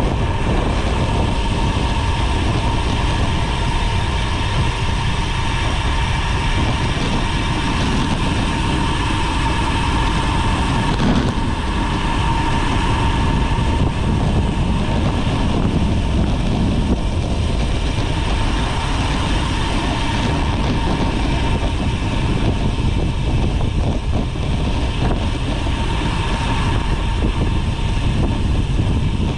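Steady rumble of wind and tyre noise picked up by a camera on a moving road bike, with a faint steady whine running through it.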